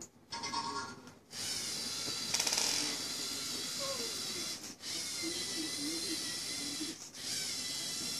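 Lego EV3 motors and gear train whining as the programmed truck drives: a steady high whine with many overtones that starts about a second in and cuts out briefly twice.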